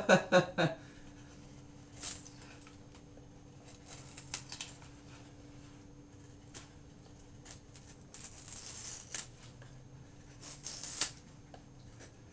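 Benchmade Mini-Rukus S30V blade whittling a pine 2x2: short, irregular scraping shaving strokes every second or two, with a faint steady hum behind.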